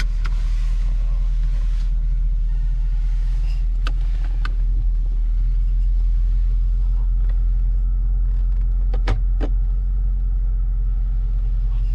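Supercharged 5.0-litre V8 of a 2014 Range Rover Sport running at idle, heard from inside the cabin as a steady low rumble. A few light clicks come around four seconds in and again near nine seconds.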